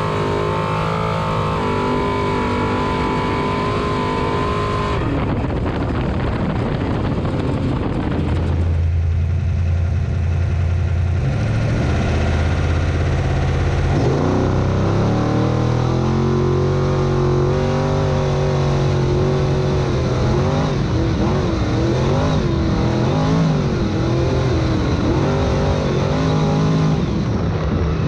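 Off-road race truck engines running and revving, the pitch rising and falling as they accelerate and lift, with abrupt changes in the sound about 5 and 9 seconds in.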